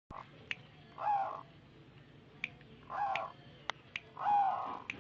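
Caged zebra dove (perkutut) cooing: three short coo phrases about a second or two apart, with sharp clicks scattered between them.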